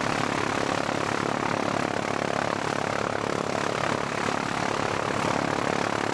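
Propeller aircraft's piston engine running steadily, a constant even noise that does not rise or fall.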